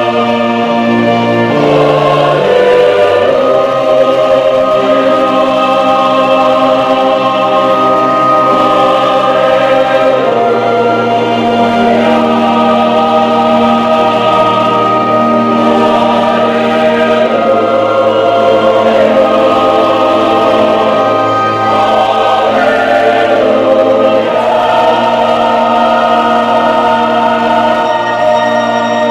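Church youth choir singing a hymn in several-part harmony, holding sustained chords that change every second or two.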